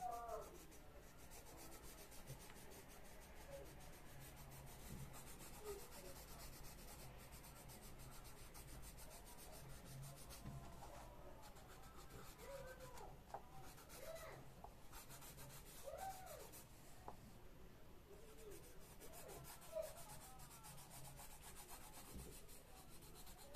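Colored pencil scratching and rubbing on a paper coloring-book page as an area is shaded in, faint and continuous.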